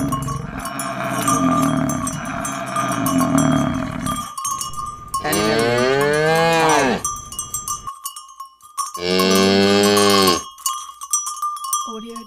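Low, rumbling bovine grunting for about four seconds, then a cow mooing twice in long calls, the first rising and falling in pitch, the second held steadier, with a third moo starting at the very end. A steady high, bell-like tone rings underneath throughout.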